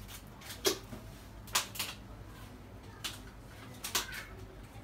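A serving bowl in its gold metal stand being handled on the kitchen counter: a handful of short sharp clicks and clinks, the loudest just under a second in, over a faint steady hum.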